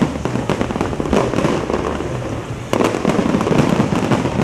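Fireworks exploding in dense crackling, popping salvos over a low rumble, with a fresh, louder volley bursting about two-thirds of the way through.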